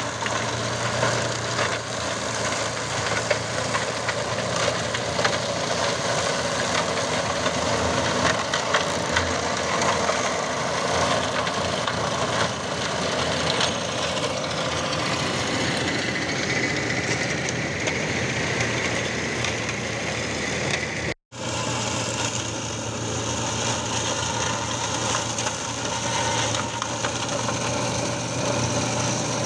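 John Deere tractor running steadily under load while its rear-mounted flail mulcher chops and crushes olive prunings into mulch, a dense, continuous grinding racket over the engine hum. The sound drops out for a split second about two-thirds of the way through.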